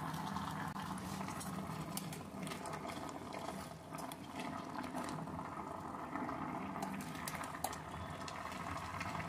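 A pot of chicken pieces and carrots boiling in water, bubbling steadily with many small pops.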